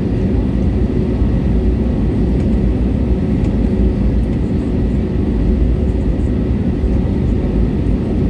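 Steady cabin noise of an Airbus A320neo's Pratt & Whitney PW1100G geared turbofans running at low power, heard from inside the cabin: a constant low rumble with a faint steady whine over it.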